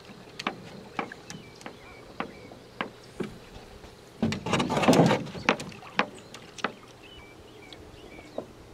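Wooden canoe being pushed off from a stony shallow shore with a dog aboard: a string of sharp knocks and clunks on the hull, with a louder second-long rush of water and scraping about halfway through as it slides free.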